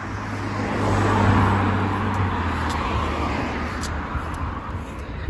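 A car driving past on the road: engine hum and tyre noise swell to their loudest about a second in, then fade away over the next few seconds.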